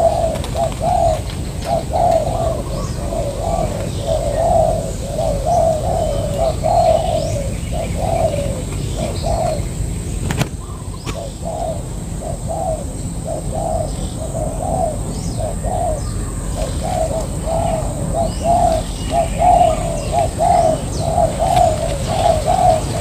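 Spotted doves cooing over and over, one coo phrase after another with hardly a break and a short pause about ten seconds in. Small birds chirp faintly in the background over a low rumble.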